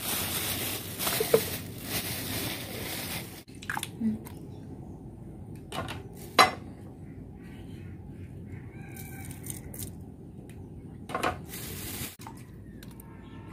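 Ingredients being handled at an aluminium cooking pot of chana dal, sliced onions and whole spices. There are about three seconds of steady rushing noise at the start, then scattered light knocks and clinks, with one sharper knock about six seconds in.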